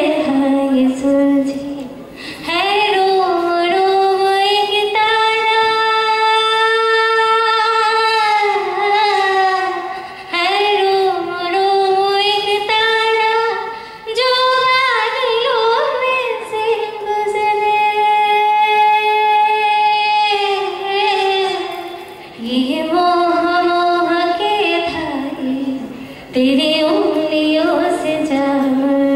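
A woman singing solo into a microphone. She sings in phrases of several seconds with long held notes, some bending in pitch, and brief breaks between phrases.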